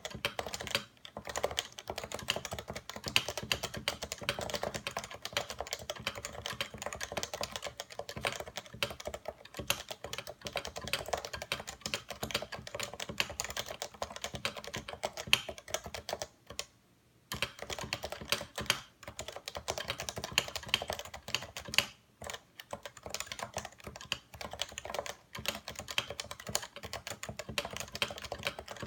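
Steady typing on a Realforce 87U tenkeyless keyboard with 55 g Topre capacitive switches: a fast, continuous run of keystrokes, broken by a few short pauses, the longest about 17 seconds in.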